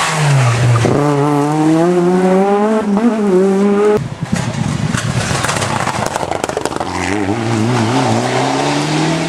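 Renault Clio rally car's four-cylinder engine at full throttle: the note drops for a moment and then climbs gear by gear as the car pulls away. After a sudden break there is a stretch of rough, crackling noise, then the wavering engine note of a Mitsubishi Lancer Evolution rally car near the end.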